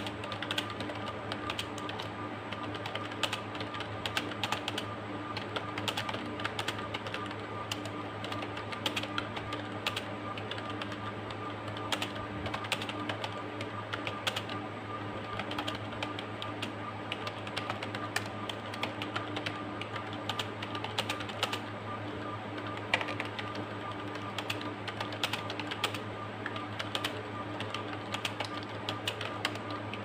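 Computer keyboard typed on quickly and without pause, a dense, continuous run of key clicks, over a steady low hum.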